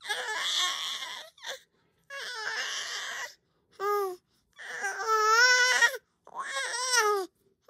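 Five-month-old baby boy vocalizing in five loud, cry-like squealing calls with a wavering pitch and short pauses between them, the fourth the longest and loudest. His father says this is the baby playing with his voice, not crying.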